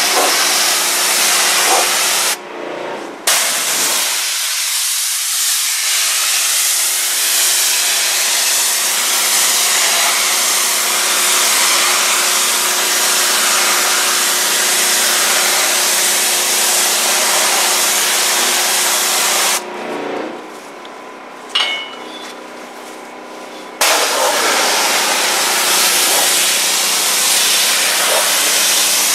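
High-pressure washer jet spraying water onto a tiled exterior wall: a loud, steady hiss. It stops briefly about two seconds in and again for about four seconds past the middle, leaving a quieter steady hum.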